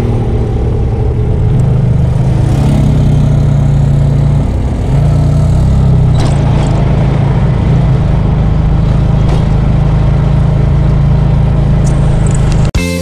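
Car engine and road noise heard from inside the cabin while driving, a steady low drone with a slight dip about four and a half seconds in. It cuts off abruptly just before the end.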